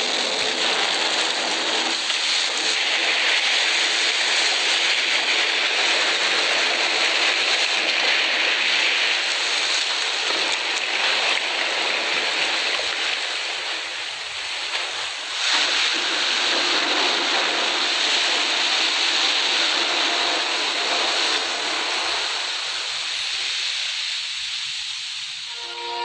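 Steady rushing of rough sea waves and surf, dipping briefly about fourteen seconds in and easing toward the end.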